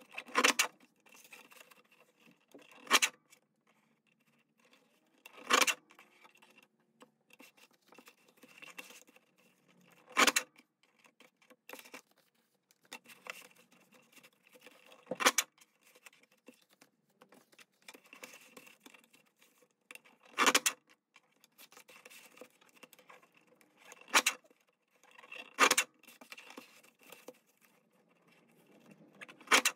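Tim Holtz lever-action paper trimmer with a crinkle-edge blade chopping through paper: about nine sharp, loud clacks a few seconds apart, with faint paper rustling and scraping between the cuts.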